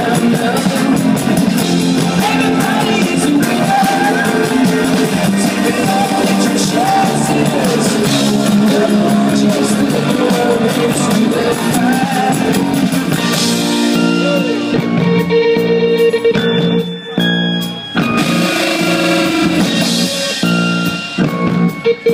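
Live rock band playing loudly: a man singing over guitars and drums. About 13 seconds in the singing stops and the music thins out to held guitar chords, with brief breaks near the end.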